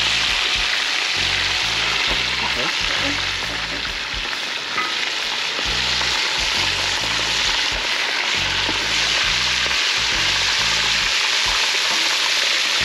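Whole floured red snapper deep-frying in hot oil, a steady sizzle, with a wooden spatula moving the fish now and then. Background music with a low bass beat runs underneath.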